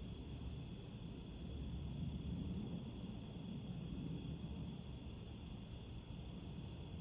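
Wind buffeting the microphone as an uneven low rumble, with faint crickets chirping high above it.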